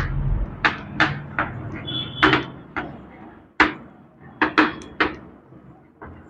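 Chalk tapping and scratching on a blackboard while words are written: about ten sharp, irregular taps as the letters are stroked out.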